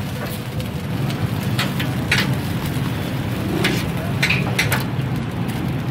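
Food sizzling on a flat iron street-food griddle, with several sharp metal clinks of a spatula striking the griddle, over a steady low hum.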